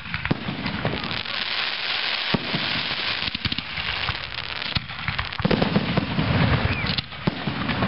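Fireworks display going off: repeated sharp bangs of aerial shells bursting, with dense crackling between them. The bangs come thickest and heaviest from about five and a half seconds in.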